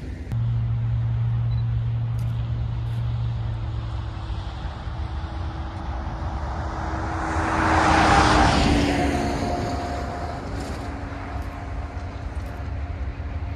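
ALCO diesel locomotives of a freight train running past: a steady engine drone swells to its loudest about eight seconds in and then drops in pitch and fades as they move away.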